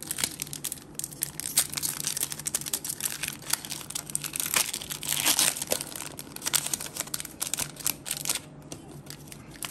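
A foil booster-pack wrapper being crinkled and torn open by hand, a dense run of crackles that thickens around the middle.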